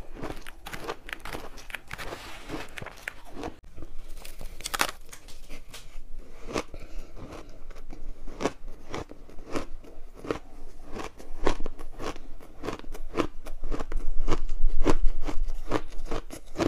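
Close-miked crunching of powdery refrozen ice dusted with matcha powder as it is bitten and chewed: a steady run of sharp crunches, about two to three a second, thickest and loudest near the end.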